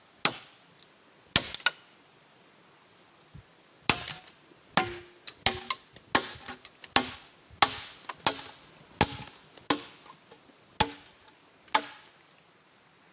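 A blade chopping at wood in repeated sharp strikes: a few hits at first, a short pause, then a steady run of blows about one or two a second that stops near the end.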